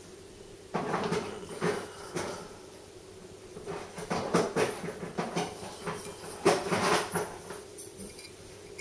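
Handling noise: a few bursts of rustling and scraping as a kitchen knife and the camera are moved close over a terry towel, about a second in, again around four to five seconds and near seven seconds, over a steady hum.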